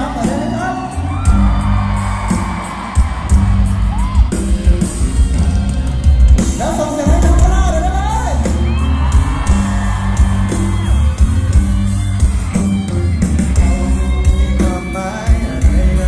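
Live pop-rock band playing loudly in a large hall: a male lead singer over electric guitars, bass and drums with a steady beat.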